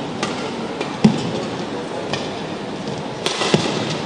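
Badminton rackets striking the shuttlecock in a fast doubles rally: a string of sharp hits, roughly one every half second to a second, the loudest about a second in, over steady arena background noise.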